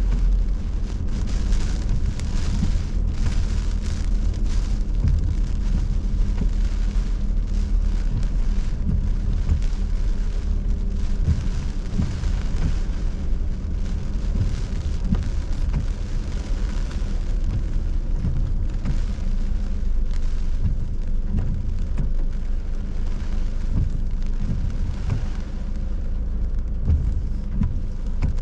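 Heavy hurricane rain pelting a car's roof and windshield, heard from inside the cabin over the steady low rumble of the car driving.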